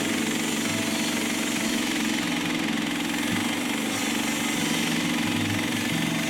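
Norwood LM30 portable bandsaw mill's gas engine running steadily with a fast pulsing throb.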